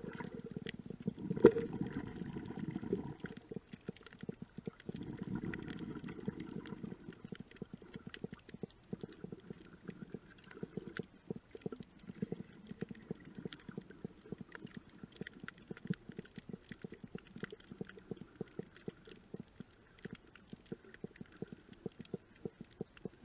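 Underwater sound in a shallow coral tide pool: a steady crackle of many small clicks, the usual background crackle of a reef. A muffled low rumble of water moving around the camera housing is strongest in the first several seconds, with one sharper knock about a second and a half in.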